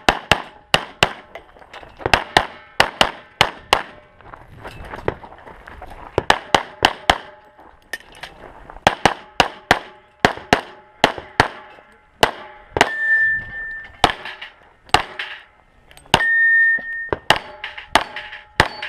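Rapid pistol shots fired in quick strings, with steel targets clanging and ringing as they are hit.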